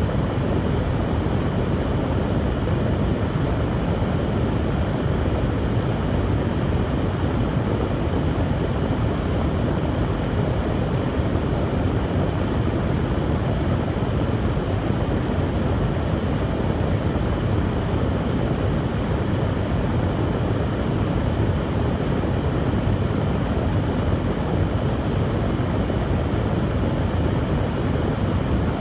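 Hair dryer blowing steadily: a constant rushing whoosh of the fan and airflow, strongest in the low range, with no change in speed.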